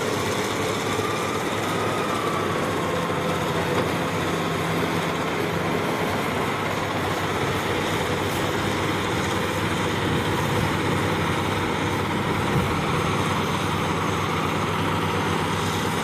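Heavy diesel engines of motor scrapers running steadily under load as a push-pull pair cuts and loads dirt, a constant engine roar and rumble with no breaks.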